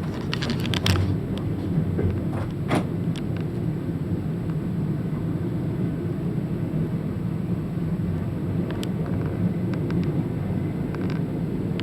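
Passenger train running along the track, heard from inside the rear carriage: a steady low rumble of wheels on rails, with a few sharp clacks and rattles in the first three seconds.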